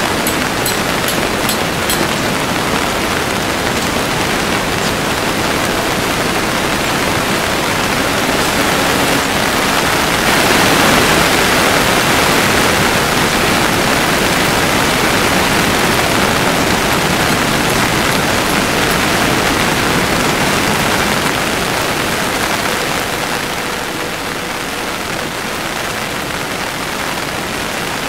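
Steady heavy rain falling, a little heavier about ten seconds in and easing somewhat near the end.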